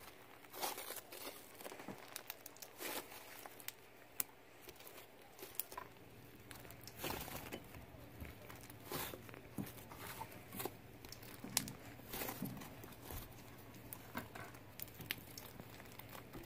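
Hands stretching and folding freshly activated cloud slime, with an irregular soft crackling, tearing and squishing as the fluffy dough pulls apart and is folded back into itself.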